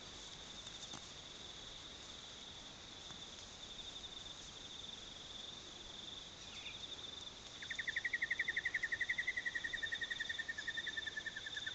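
Insects calling: a steady, high, fast-pulsing trill throughout, joined about eight seconds in by a louder, lower pulsing trill that sinks slightly in pitch.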